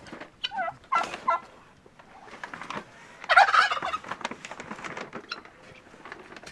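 Chickens calling: a few short, pitched calls about half a second to a second and a half in, then a louder, longer call about three seconds in.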